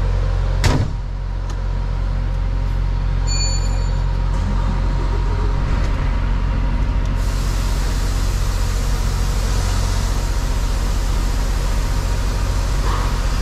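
Volvo semi truck's diesel engine running steadily, heard from inside the cab. A sharp knock comes about a second in, a short beep a few seconds in, and a steady hiss joins about halfway through.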